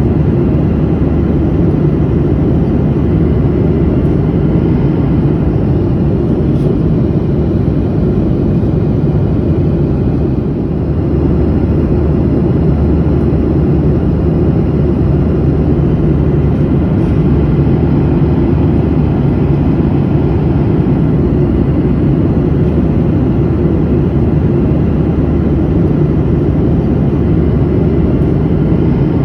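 Airplane in flight heard from inside the cabin: a steady, even low rumble of engines and airflow, unchanging throughout.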